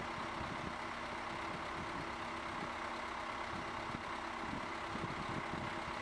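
Heavy construction machinery with its engine running steadily at a constant speed: an even, unchanging hum with a few faint held tones.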